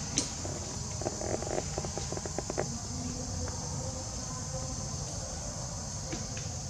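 A steady, high, even buzz from a chorus of insects. About a second in there is a quick run of soft clicks and taps.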